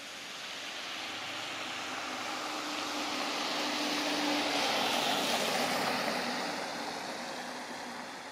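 Freightliner snowplow truck pushing snow with its front plow blade: the engine running under the scrape and rush of snow along the blade. It grows louder to a peak about halfway through, then fades.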